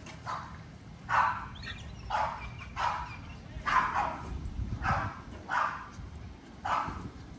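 A dog barking repeatedly, about one bark a second, each bark short and fairly high-pitched.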